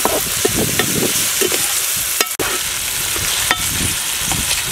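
Diced vegetables (tomato, carrot, beans, corn) sizzling in oil in a large metal pot, with a perforated metal ladle stirring and scraping repeatedly against the pot's bottom and sides.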